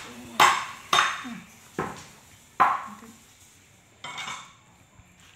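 A round plastic lid used as a puppy's food dish knocking and clattering four times in quick succession as it is jostled during feeding, then a softer scrape about four seconds in.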